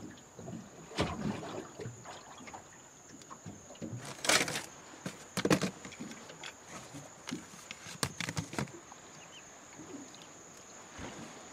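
Gear being handled and set down in a small boat: scattered knocks and clatters, the loudest about four and five and a half seconds in and another pair around eight seconds, over a faint steady high-pitched whine.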